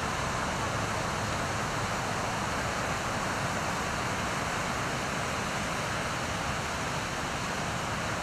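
Ocean surf breaking, heard as a steady, even rushing noise with no single crash standing out.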